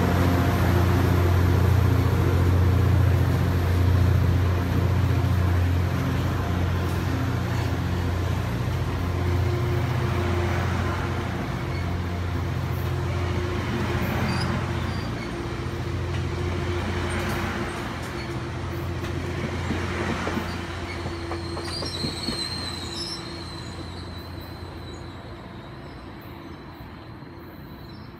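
Caltrain diesel commuter train passing close by. The EMD F40PH locomotive's engine hum is strong at first and weakens as double-deck coaches roll past. About three-quarters of the way through there is a brief high squeal, and the sound fades as the train moves away.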